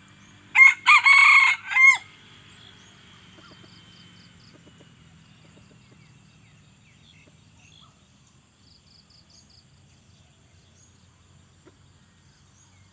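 A red junglefowl cock crows once, about half a second in. It is a short, loud crow of about a second and a half in three parts, cut off sharply at the end.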